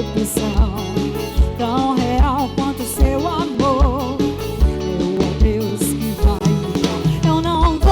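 Live band music: an instrumental passage with a lead melody wavering in vibrato over bass and a steady kick-drum beat.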